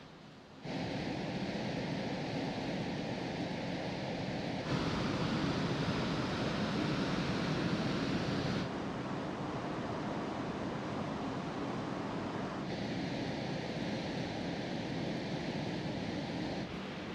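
Steady rushing wind and sea noise on a ferry's open deck, with wind on the microphone. It starts suddenly about a second in and changes abruptly in loudness and tone about every four seconds.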